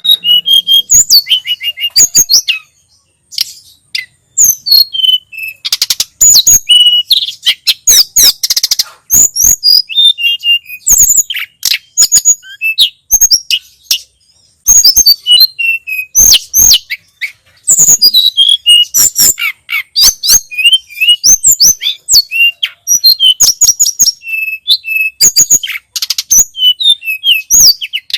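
Tledekan gunung songbird singing: dense runs of rapid, high-pitched chirps and short trills, broken by a couple of brief pauses.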